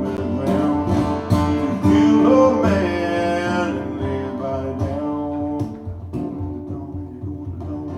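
Live guitar music: an instrumental passage of a song, with ringing, sustained notes and chords that grow a little quieter toward the end.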